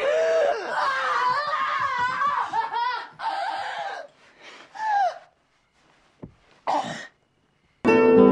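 A woman's loud, shaky gasping and crying out, wavering in pitch, as she is jolted awake by an adrenaline injection to the heart; a few shorter cries follow after a pause. Acoustic guitar music starts near the end.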